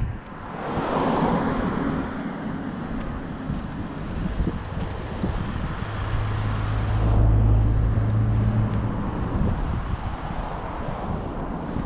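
Wind buffeting the microphone of a camera carried on a moving mountain bike, with a low vehicle engine hum that swells and is loudest between about six and nine seconds in.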